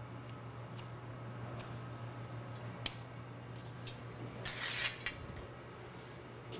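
A wooden yardstick handled on a steel work table: a few light taps and clicks, and a short scrape about four and a half seconds in as the stick slides off the steel. A steady low hum runs underneath.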